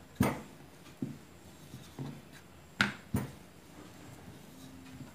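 Wooden rolling pin rolling paratha dough on a round wooden board: a soft rubbing roll with a sharp wooden knock about once a second. The loudest knocks come near the start and a little under three seconds in.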